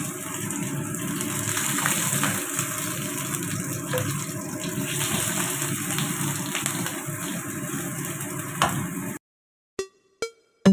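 Hot oil sizzling steadily with scattered small pops as dory fish fries; it cuts off suddenly about nine seconds in. Sharp electronic drum beats start just before the end.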